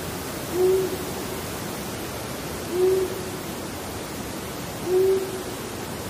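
Long-eared owl calling: three single, low 'whoo' hoots spaced about two seconds apart, over a steady background hiss.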